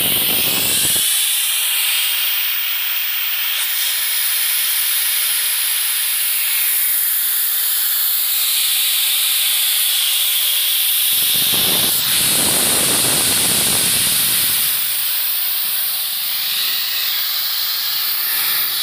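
Air rushing out of a large tractor rear tyre through its open valve stem: a loud, steady hiss as the tyre is deflated before being filled with water ballast.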